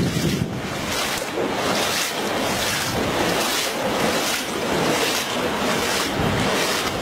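Footsteps wading through shallow floodwater, sloshing about twice a second, under a steady rush of wind on the microphone.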